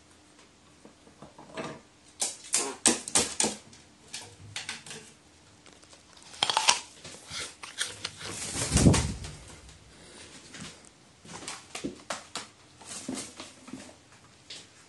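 A pet crow moving about on its shelf and perch: scattered clusters of sharp taps and scrapes from its claws and beak, with one louder, lower rustle about nine seconds in.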